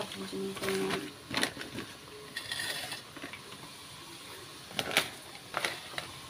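Newspaper crinkling and rustling as fried french fries are tipped out of it by hand, with a few sharp clicks and taps scattered through.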